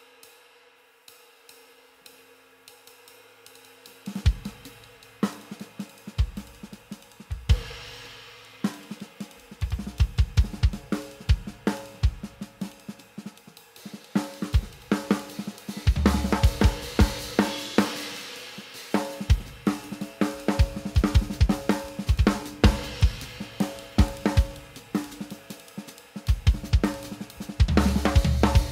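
A drum kit groove played with a Meinl Cymbal Bacon chain sizzler resting on the cymbal, so each cymbal stroke buzzes and sizzles. Light cymbal strokes come alone at first, then kick and snare join about four seconds in.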